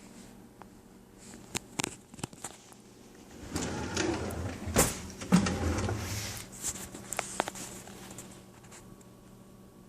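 Kitchen drawers and cabinets being handled: a few light clicks, then about three seconds of sliding and rattling with two sharp knocks in the middle, then a few more clicks.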